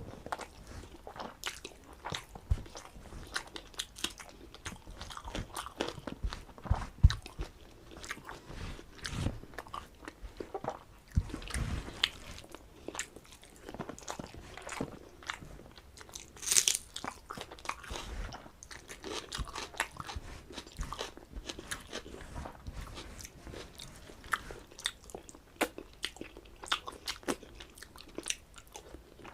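Close-miked eating: a person chewing and crunching mouthfuls of rice and side dishes, with irregular wet smacks and clicks. A sharper, louder crunch comes about halfway through.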